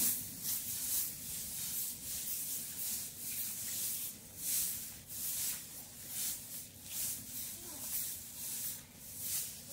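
Grass brooms sweeping a concrete rooftop, with swishing strokes about twice a second.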